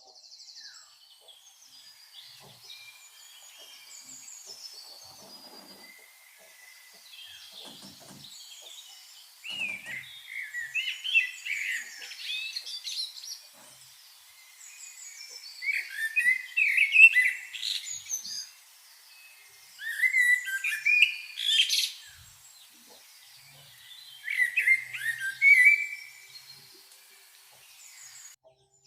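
Songbirds chirping and singing: fainter chirps at first, then four louder bursts of quick, sliding high notes, each lasting two to three seconds.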